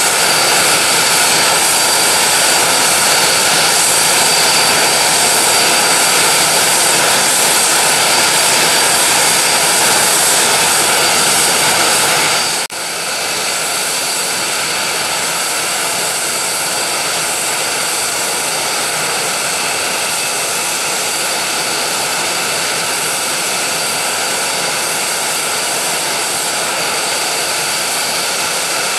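Aermacchi M-346 (Italian Air Force T-346A) jet trainer with its twin Honeywell F124 turbofans running on the ground: a loud, steady jet rush with several high whining tones held at constant pitch.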